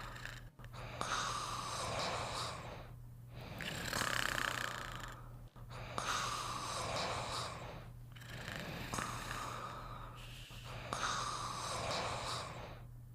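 Snoring in deep sleep: slow, rasping breaths rising and falling about every two to three seconds, some with a faint high whistle on them. A steady low hum runs underneath.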